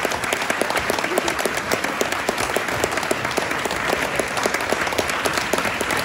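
Concert audience applauding, a dense and steady sound of many hands clapping.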